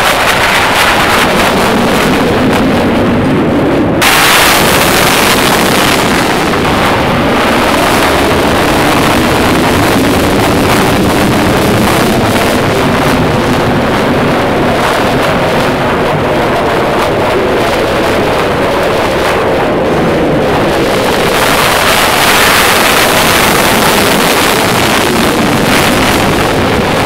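F-16 Fighting Falcon jet noise during an airshow flying display: a loud, steady rushing roar that turns abruptly harsher and brighter about four seconds in.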